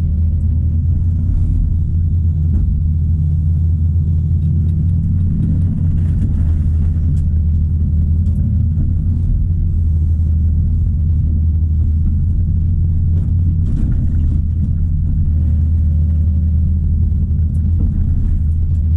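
Caterpillar 973C track loader's diesel engine running steadily, with a few light knocks and clanks from the machine.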